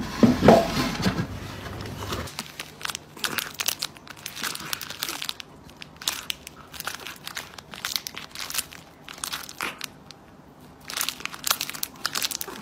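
Thin plastic treat packet crinkling and crackling in quick, irregular bursts as a cat bites and licks at it. A louder, partly pitched sound comes in the first two seconds.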